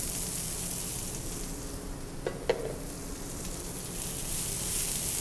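Shaved Brussels sprouts frying in bacon fat in a sauté pan over medium heat, a steady sizzle that eases a little about halfway and picks up again toward the end.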